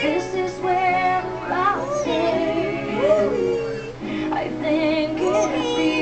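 African grey parrot whistling and vocalizing in sing-song phrases: a string of short whistled notes that rise and fall, with some longer held tones.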